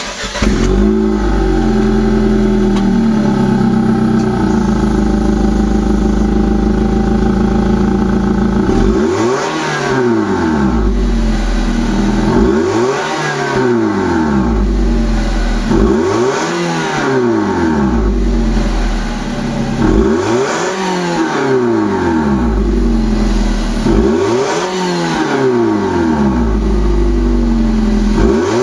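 Nissan Serena HFC26's four-cylinder engine heard at the tailpipe through an IMPUL Blast II aftermarket muffler: it starts, idles steadily for about nine seconds, then is revved five times, each blip rising in pitch and falling back to idle, about every four seconds.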